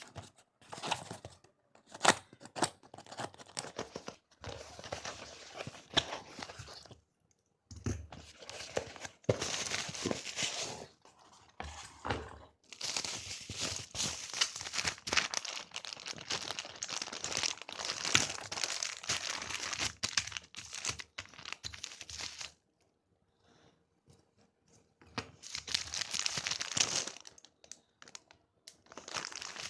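Packaging being torn open and crinkled by hand, in long rustling stretches with occasional sharp clicks, pausing briefly about three quarters of the way through.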